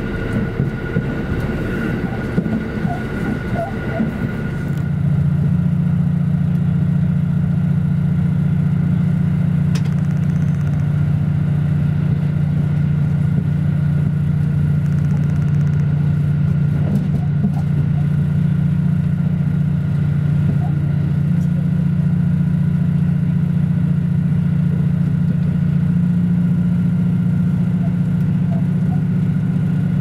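KiHa 85 series diesel express railcar running at speed, with wheels rumbling on the rails. About five seconds in, a steady low drone from its Cummins diesel engine comes in louder and holds.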